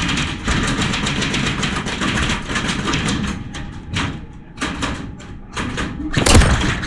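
Airsoft guns firing: a rapid rattle of shots that thins out to scattered single shots after about three seconds, with one loud thump near the end.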